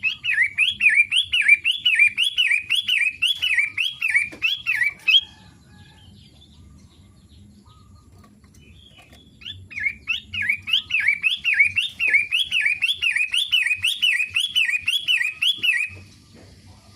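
A pet shrike (pentet) singing two long bouts of fast, evenly repeated looping chirps, about three a second, with a pause of about four seconds between the bouts.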